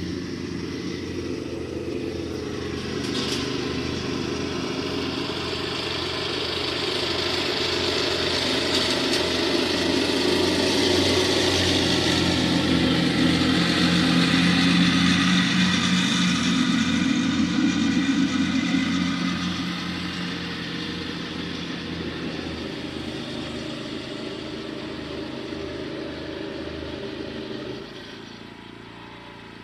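Lawn mower engine running steadily, growing louder for a while and then fading. Near the end the running sound drops off abruptly, which the operator takes for the mower's belt breaking.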